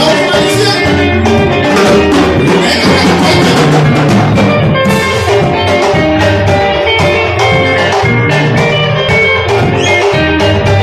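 Live band music with a steady beat: held and moving instrument notes over regular drum strikes.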